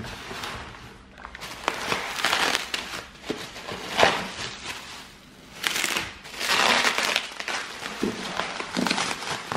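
Bubble wrap crinkling and rustling as hands unwrap and handle a packed parcel, in irregular bursts with a short lull about five seconds in.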